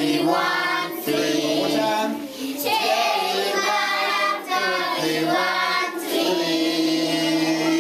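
A group of children singing a memory-verse teaching song together.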